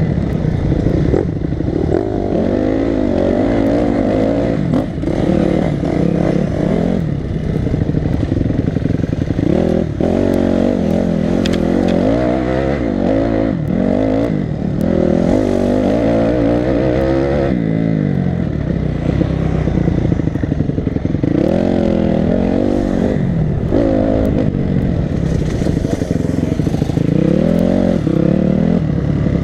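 Enduro motorcycle engine heard from a helmet-mounted camera, revving up and dropping back again and again as the rider works the throttle and gears over a dirt track, with clatter and knocks from the bike over the ground.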